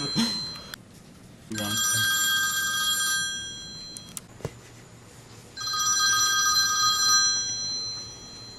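Smartphone playing an old-fashioned telephone bell ringtone, an incoming call going unanswered. It rings in bursts of about two seconds with pauses of about two seconds between them: one ring ends under a second in, and two more follow.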